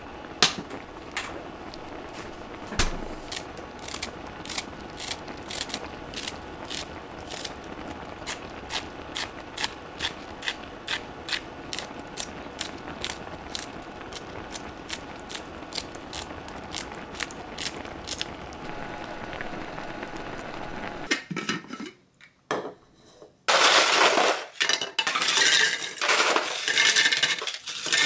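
Spicy fish-cake broth simmering in a pan while kitchen scissors snip green onion and chili into it, about two crisp snips a second. Near the end, ice cubes poured from a plastic ice bin rattle loudly into a jar.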